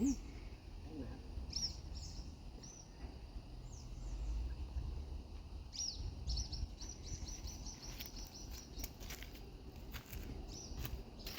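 Small birds chirping, with a quick run of repeated high chirps from about six to ten seconds in, over a steady low rumble.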